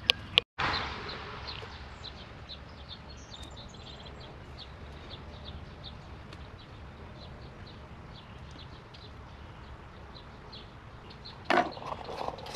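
Small birds chirping over and over against a steady low background noise outdoors. There are a few loud knocks and rustles near the end.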